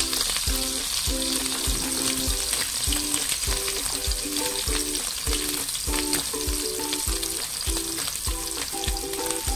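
A silverfish omelette sizzling and crackling as it fries in a shallow layer of hot oil in a pan, over background music with a steady beat.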